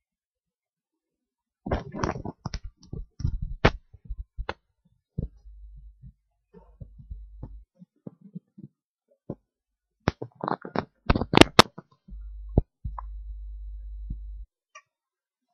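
Irregular clicks, knocks and rustles in two bunches, the loudest sharp knocks about eleven seconds in. A low steady hum comes in twice, for two to three seconds each time.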